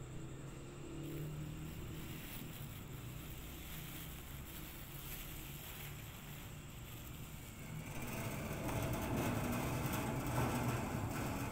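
Street background noise: a steady low vehicle engine hum, with traffic noise growing louder about eight seconds in.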